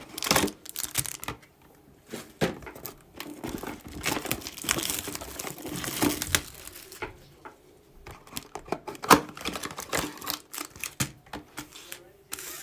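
Plastic shrink-wrap on a Panini Chronicles Soccer trading-card box crinkling and tearing as it is peeled off, with irregular crackles and sharp clicks from the cardboard box being handled. The loudest click comes about nine seconds in.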